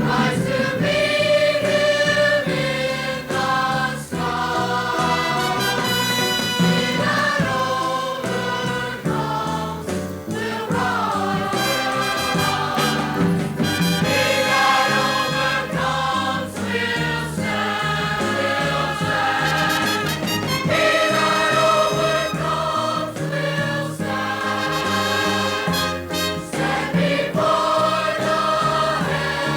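Music: a Christian vocal group singing as a choir with instrumental accompaniment.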